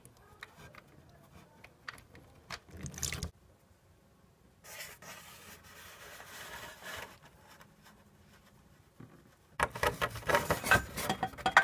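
Hands working under a motorcycle's engine: scattered scrapes and light taps, a soft hiss in the middle, then a louder run of rapid clicks and rattles near the end.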